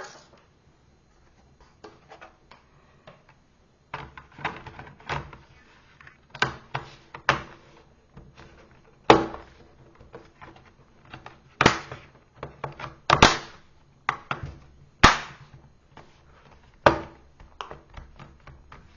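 Irregular series of sharp plastic clicks and knocks from a laptop's bottom cover and chassis being handled, its cover clips snapping, with about five louder snaps in the second half.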